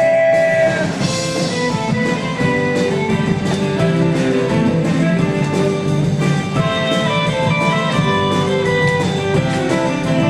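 Rock band playing an instrumental passage led by guitar, with a long held sung note that stops about a second in.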